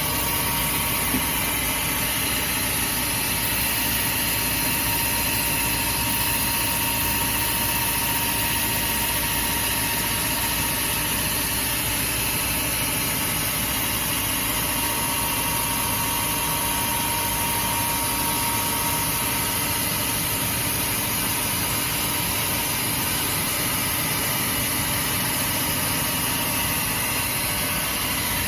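MJ3971Bx400×2 heavy double-head horizontal band saw running, giving a steady machine noise with a faint constant whine.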